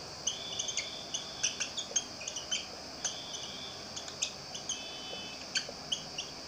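Whiteboard marker squeaking against the board as handwriting is written: a quick, irregular run of short high squeaks, a few drawn out to about half a second.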